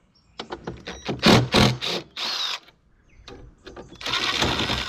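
Handling and tool noise on the lawn mower's rear drive bolts: clicks and loud clunks in the first half, then a dense rapid mechanical rattle about four seconds in.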